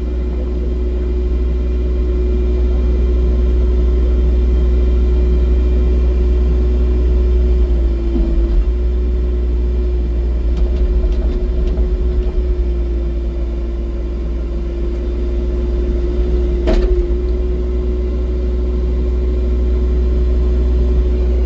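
Excavator's diesel engine running steadily under load, a deep drone with a constant hydraulic whine over it. A single sharp knock comes late on.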